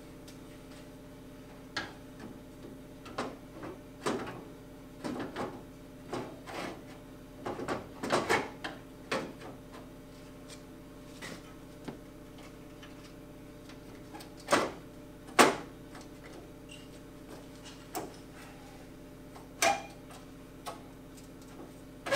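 Irregular metallic knocks and clicks as the alloy radiator and its angle-iron brackets are handled and pushed into place against the car's steel front frame, with a steady hum from the workshop underneath. The sharpest knocks come in a pair about two-thirds of the way through.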